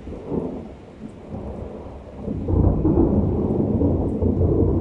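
Rolling thunder: a low rumble that swells briefly at the start, then grows loud about two and a half seconds in and eases near the end.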